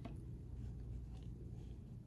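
A utensil scraping into a cardboard box of powdered cornstarch: a soft click, then a few faint light ticks, over a low steady hum.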